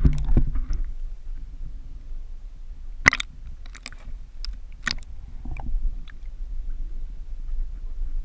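Sharp knocks and clatters of gear handled on a plastic sit-on-top kayak while a pike is netted and lifted aboard, a cluster at the start and a handful more, the loudest about three seconds in, over a steady low rumble.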